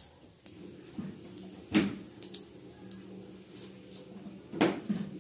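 Radhuni seeds and a dried red chilli crackling faintly in hot oil in a kadai, over a steady low hum. Two loud knocks cut in, one about two seconds in and one near the end.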